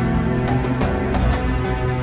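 Background music added over the footage: steady held tones with light percussive strikes.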